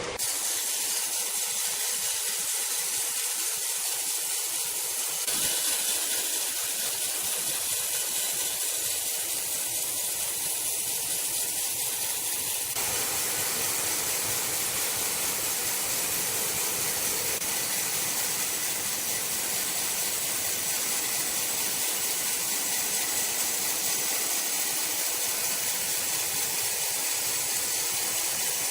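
Steady hissing noise, strongest in the high range, with no clear tones or strikes; its colour shifts slightly about five and thirteen seconds in.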